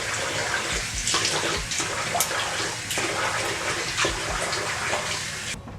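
Tap water running into a bathroom sink with splashes, cutting off suddenly near the end; the sound of rinsing off face cleanser.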